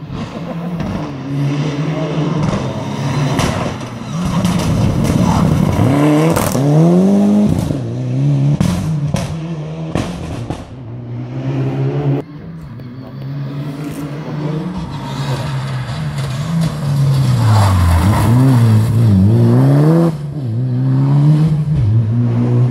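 Rally car engine heard on the stage, revving up and falling back again and again through gear changes, with sharp pops and cracks among the shifts. It is loudest about two-thirds of the way in, where the revs drop low and climb again as it brakes and pulls away.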